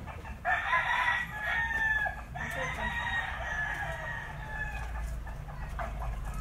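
Rooster crowing: one long crow starting about half a second in, then a second that falls slightly and trails off around five seconds in.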